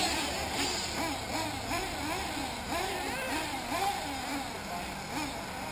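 Small nitro engines of 1/8-scale RC off-road buggies revving, their pitch rising and falling in quick repeated swells as the throttle is worked, over a steady hiss.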